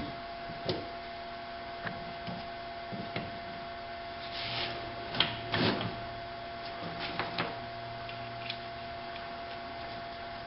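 Scattered knocks, clicks and scrapes of a brake master cylinder being fitted onto its brake booster, with a cluster of louder knocks about halfway through, over a steady background hum.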